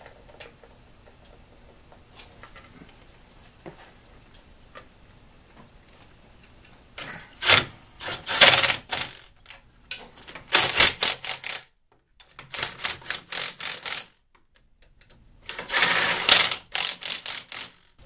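Cordless power driver running in about five short rattling bursts with brief pauses between, tightening the bolts of a Model T's distributor housing cover. Before that there are a few seconds of quiet handling clicks as the bolts are started by hand.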